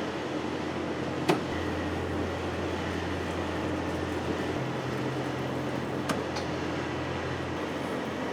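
Metal bending machine running with a steady hum whose low tone shifts a couple of times, and two sharp clicks about five seconds apart.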